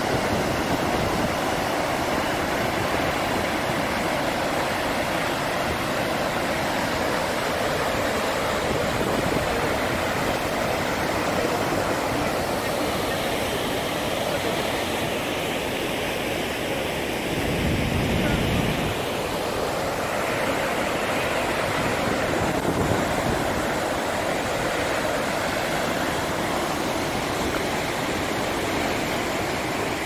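Large waterfall and its river rapids: a steady, unbroken rush of falling and churning water. A brief low rumble comes about eighteen seconds in.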